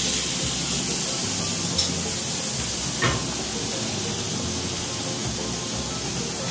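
Steak and vegetables sizzling steadily in a hot cast-iron skillet, with one short click about three seconds in.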